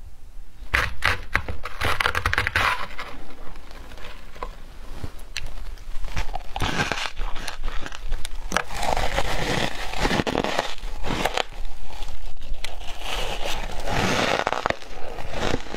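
Matcha-dusted shaved ice crunching as it is bitten and chewed close to a clip-on microphone, with a metal spoon scraping scoops of ice from a plastic tub. The crunches come in uneven runs of crackling and clicks.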